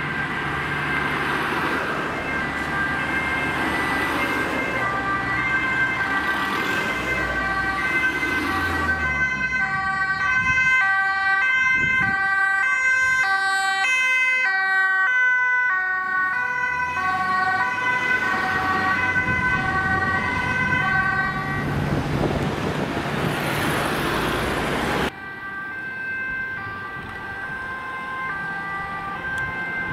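Emergency vehicle two-tone sirens sounding, several at once, their alternating pitches overlapping, over engine and road noise. About 25 seconds in the sound cuts suddenly to a quieter scene where a siren keeps sounding.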